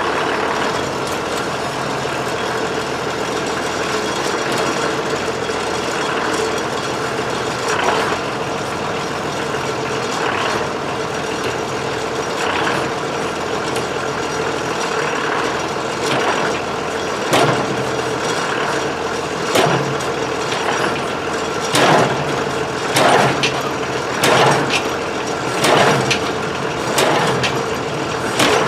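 Tractor engine running steadily while it pulls against a tractor whose seized engine will not turn over. From about halfway, short harsh noises come roughly once a second.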